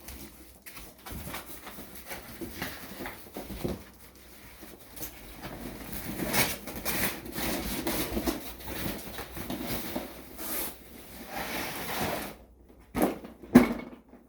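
Packaging being handled and opened: irregular rustling, crinkling and scraping, busiest in the middle, with two sharp knocks near the end.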